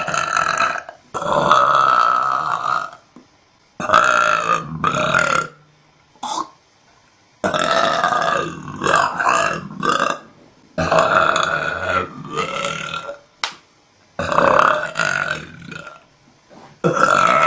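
A woman belching over and over: a string of long, drawn-out burps, most lasting one to three seconds, with short pauses between them.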